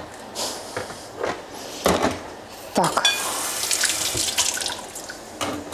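Kitchen sink tap turned on about three seconds in, water running steadily into the sink for a couple of seconds and then shut off. Before it, a few short knocks from handling things at the sink.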